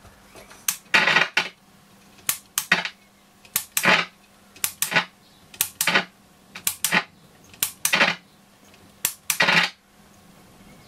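Roberts R600 transistor radio's loudspeaker putting out a regular click followed by a short crackling burst, repeating about once a second, in place of any station. The repairer wonders whether the power socket is making proper contact.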